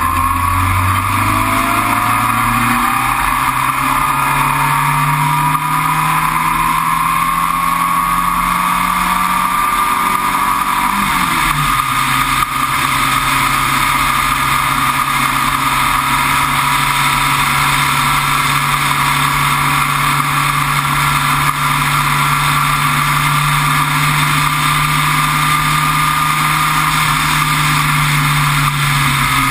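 Sports racer's engine heard onboard, pulling under throttle with its note climbing for about ten seconds, then a gear change about eleven seconds in, after which the engine note holds nearly steady.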